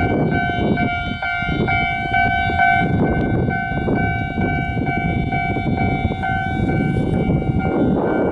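Japanese railway level-crossing warning bell ringing, pulsing about twice a second, over the low rumble of a Kintetsu train running past on the line.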